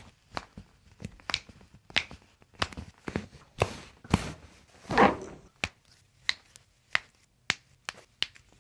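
Footsteps on a hard floor, about one and a half steps a second, each a short sharp click, with one louder, fuller sound about five seconds in.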